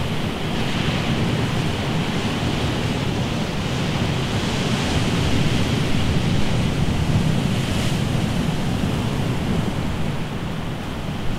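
Steady rushing of sea surf along a rocky shore, mixed with wind buffeting the microphone.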